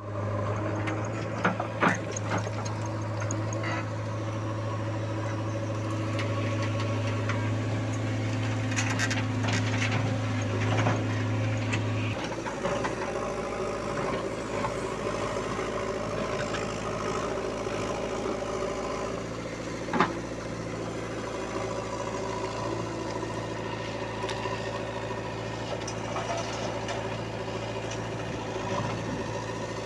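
JCB 3DX backhoe loader's diesel engine running steadily under hydraulic load as its bucket digs rocky soil, with sharp clinks and knocks of stones against the steel bucket. The engine note changes about twelve seconds in.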